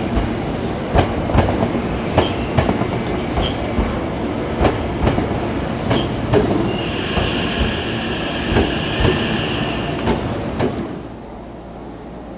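Hankyu electric train moving through the station, its wheels clattering over rail joints and points in irregular clicks, with a high wheel squeal for about three seconds in the middle. The train noise drops off suddenly near the end.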